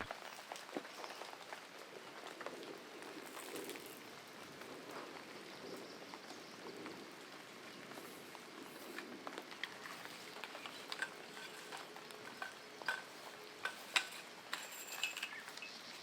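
Rain pattering, with scattered sharper drip ticks that grow more frequent near the end.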